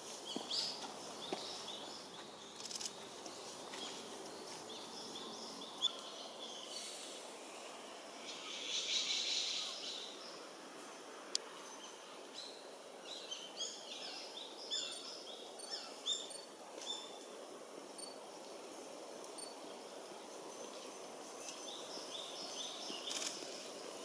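Woodland ambience with small wild birds chirping, many short high chirps coming in clusters, busiest in the middle and again near the end. There is a brief hissing rush about a third of the way in.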